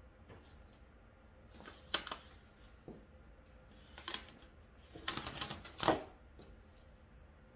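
Handling sounds of a hot glue gun and a paper-covered craft pumpkin on a tabletop: a few short clicks and paper rustles about two and four seconds in, then a longer rustling stretch, loudest near six seconds.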